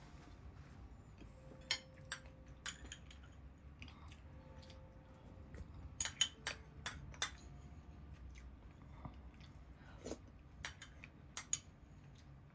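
Metal spoon clinking and scraping against a small ceramic ramekin while yogurt is scooped out: scattered light clinks, several in quick succession about six seconds in, over a low room hum.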